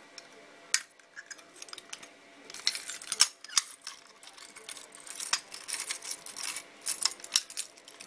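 Metal keys on a keyring jingling and clinking, with sharp clicks, as a key is worked in the reset lock of a fire alarm pull station. The clinks come irregularly, in small clusters, busiest over the second half.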